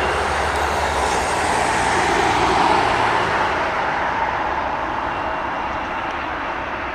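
Boeing 737 jet engines running as the airliner rolls past on the ground: a steady jet rush. It is loudest about halfway through, then slowly fades.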